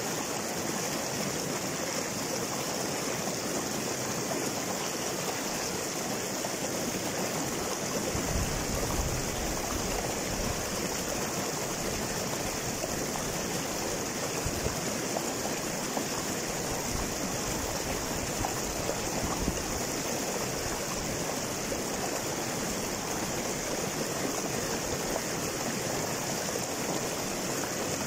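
Shallow rocky stream rushing and splashing over and between boulders in small cascades, a steady rush of water with a few brief low surges.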